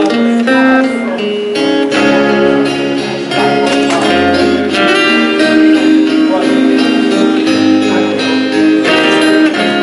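Instrumental break in a country gospel song: steady guitar-led backing music with held chords and a melody line, and no singing.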